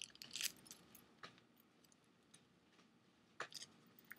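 A few faint clicks and rustles from a small wallet being handled, with near silence between them: a short cluster at the start, then single clicks about a second in and again near the end.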